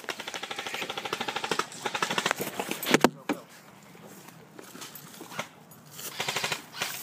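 Airsoft electric guns firing on full auto: a rapid, even rattle lasting about two seconds, a single sharp crack about three seconds in, and another short rattle near the end.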